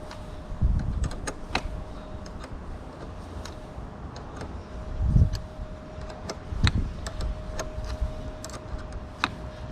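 Hand socket ratchet loosening a car battery's negative terminal clamp bolt: scattered sharp clicks and light metallic taps, with a few dull knocks. A faint steady hum runs underneath.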